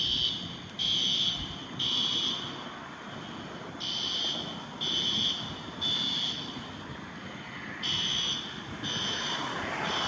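Fire alarm horns (System Sensor SpectrAlert Advance horn-strobes) blaring in the temporal-three pattern: three short, loud blasts, a pause, then three more, repeating. This is the building's evacuation signal.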